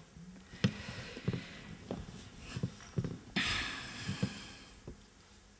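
Faint clicks and small knocks picked up by a handheld microphone held close, scattered about one every half second to second. A soft, breathy hiss lasts about a second, starting a little past the middle.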